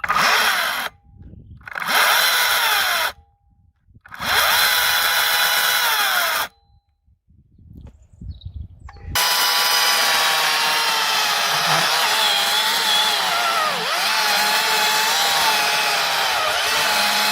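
Greenworks cordless electric chainsaw running in three short bursts, then continuously for about eight seconds from about nine seconds in, its motor pitch dipping and wavering.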